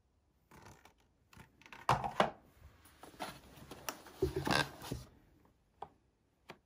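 Cardboard packaging being handled: rustling, sliding and light knocks as a cardboard insert is lifted out and a cardboard attachment box is slid from its slot in a Dyson Airwrap case, loudest twice in the middle, with a couple of short clicks near the end.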